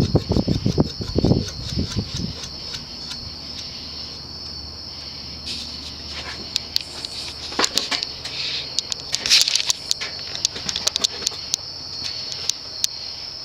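Evergo banana ceiling fan's cast-aluminium spinner motor running, running slower in reverse (updraft). Low gusty air noise on the microphone fades in the first two seconds, leaving a low steady hum under a steady high-pitched trill, with scattered light clicks through the second half.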